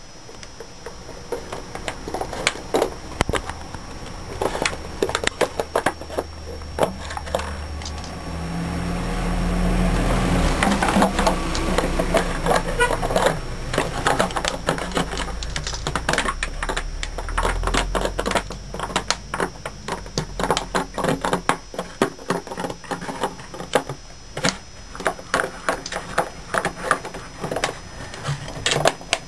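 A Dalmatian chewing a plastic drink bottle: rapid, irregular crackling and crunching of the thin plastic. A low rumble underneath swells for several seconds in the middle.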